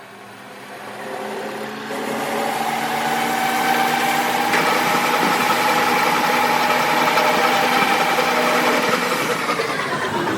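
Workshop machine starting up and running: its level builds over the first few seconds, then holds a steady whine with a hiss, easing slightly near the end.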